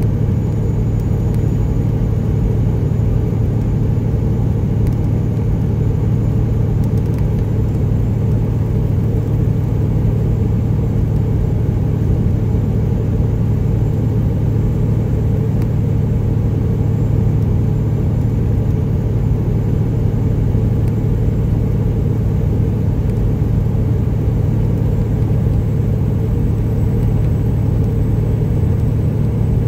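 Peterbilt 379 with a straight-piped Detroit Series 60 inline-six diesel, running steadily at highway cruise with tyre and road noise, heard from inside the cab. It is an unbroken low drone that holds the same pitch and level throughout.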